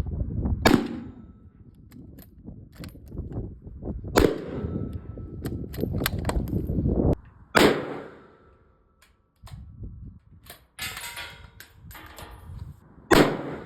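Rifle shots: four sharp cracks a few seconds apart, each trailing off in an echo.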